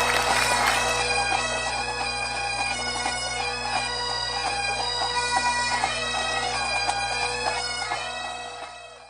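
Highland bagpipes playing a tune over steady drones, fading out near the end.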